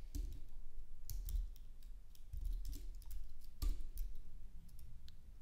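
A few separate computer keyboard keystrokes, sparse typing of a line of code, over a faint low hum.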